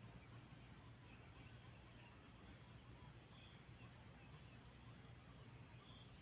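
Near silence with faint insects chirring in the grass: a high, pulsing trill that comes and goes twice.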